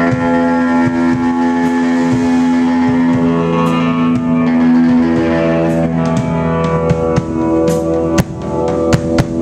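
Live band music: long held chords, changing about halfway through, with drum and cymbal hits that come more often in the second half.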